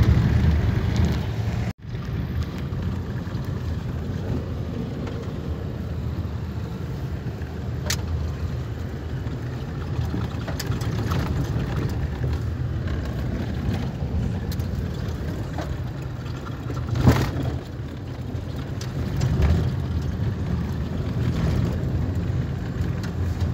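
Inside a car driving over a rough dirt road: a steady low engine and tyre rumble, with occasional knocks and rattles from bumps. The loudest knock comes about seventeen seconds in. The sound cuts out for an instant about two seconds in.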